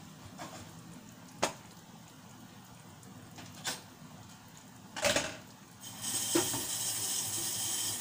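Kitchen sounds: a few sharp knocks and clicks, like pots or utensils being handled, over the low sound of a lidded pan cooking, then a loud hissing rush of about two and a half seconds from about six seconds in.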